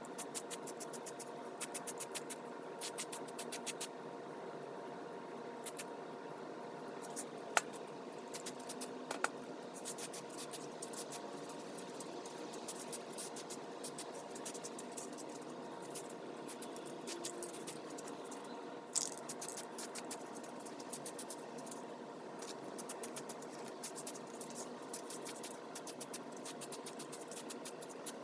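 Aerosol can of self-etching primer being shaken, its mixing ball rattling in runs of quick clicks, with a few louder single ticks, over a steady low hum.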